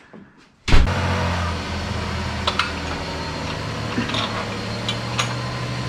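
A steady low mechanical hum that starts suddenly with a thump under a second in, with a few light clicks over it.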